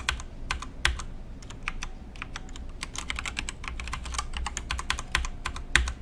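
Typing on a computer keyboard: a long run of irregular key clicks, with one louder keystroke near the end.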